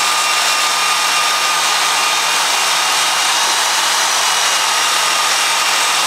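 Milwaukee portable bandsaw (portaband) running steadily with a constant motor whine while its blade cuts a knife blank, connecting relief cuts around a curve.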